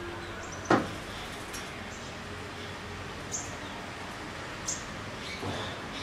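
A sharp knock just under a second in, then a few short, high bird chirps spaced over a steady background hiss.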